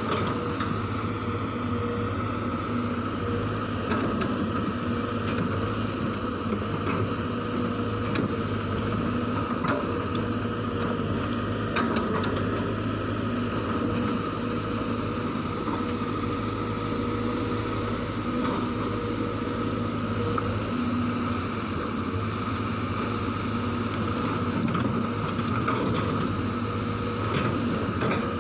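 Sumitomo hydraulic excavator's diesel engine running steadily under load as it digs, a constant hum with a few faint knocks.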